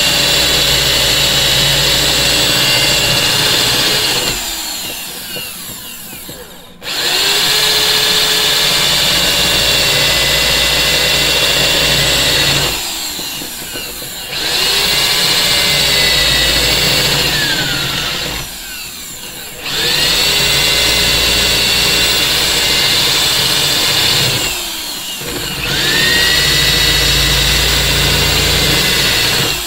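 Power drill boring out spot welds in a car's sheet-steel sill, in five runs of about four to five seconds each. Each run starts with the motor's whine rising to speed and dies away into a short pause before the next weld.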